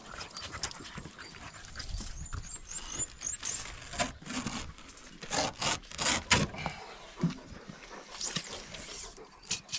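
Working dogs panting and moving about, with scuffling and knocking. About two seconds in there is a quick run of short, high, rising chirps.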